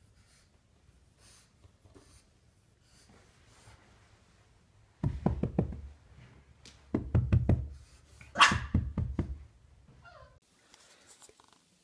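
Bulldog puppy's paws and body thumping on carpeted stairs: three bunches of dull knocks about five, seven and eight and a half seconds in.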